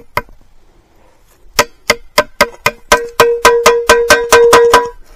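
Metal being struck repeatedly: about fifteen sharp strikes, each with a clear ringing tone, quickening as they go. The strikes are on an old forged iron wedge just dug from the ground, and the ring shows it is iron, not rotted wood.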